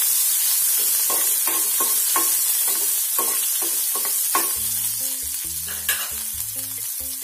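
Green chillies and curry leaves sizzling in hot oil with mustard seeds in a kadai during the tempering (vaghar), stirred with a flat spatula in quick strokes against the pan, about three a second. The stirring stops after about four seconds and the sizzle goes on, while soft background music comes in.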